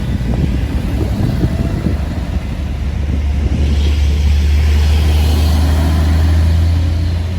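Heavy truck's diesel engine pulling uphill under load: a deep drone that grows louder about three seconds in, then holds steady.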